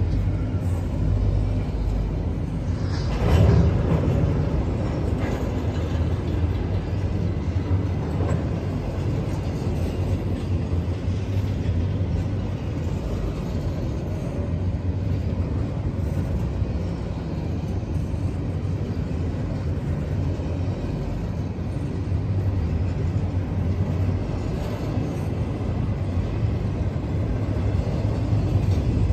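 Norfolk Southern intermodal freight train's empty well cars rolling past close by, a steady rumble of steel wheels on rail. A brief louder clatter comes about three seconds in.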